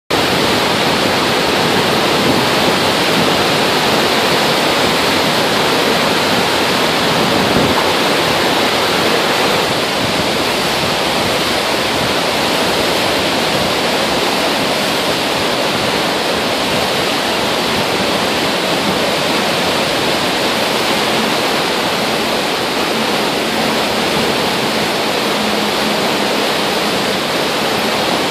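Muddy floodwater rushing and churning in standing waves around a concrete bridge pier: a loud, steady wash of turbulent water noise.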